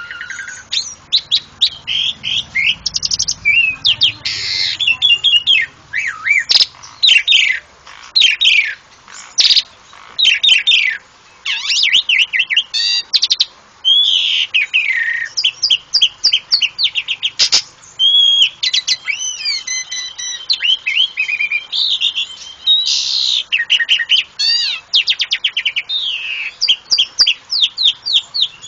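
Asian pied starling (jalak suren) singing a long, varied song of rapid chattering notes, squeaks and sliding whistles, in bursts broken by short pauses.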